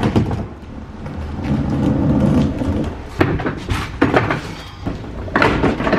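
Casters of a heavy flight case rolling over asphalt, making a low rumble that swells and fades, with a few sharp clunks as the case bumps along.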